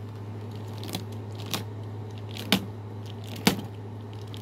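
Paper and cardboard packaging being handled: four sharp crackles spaced about a second apart, over a steady low hum.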